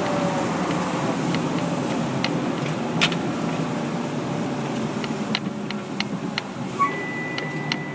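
Fire engine under way: steady engine and road noise with scattered light clicks and rattles. A steady high-pitched tone starts near the end.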